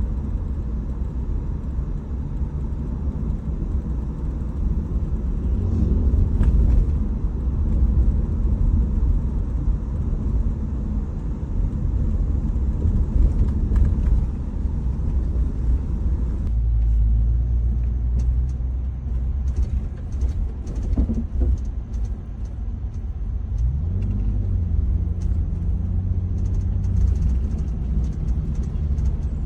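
Inside a Lexus GX550 cabin while driving: steady low road and drivetrain rumble with scattered short clicks or rattles, the strange noise from the driver's side and rear cabin area. The sound changes abruptly about halfway through, and a rising engine tone comes in a little later.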